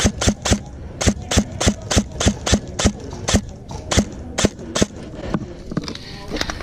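Airsoft gun firing a quick string of about fourteen single shots, roughly three a second with a few brief gaps, stopping about five seconds in.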